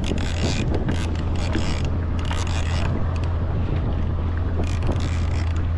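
Wind buffeting the microphone in a steady low rumble on a kayak at sea, with short hissing bursts of water splashing and lapping against the hull.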